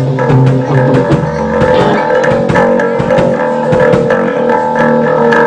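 Live rock band playing loudly: electric guitars, bass guitar and drum kit, with held guitar notes over steady drum and cymbal hits.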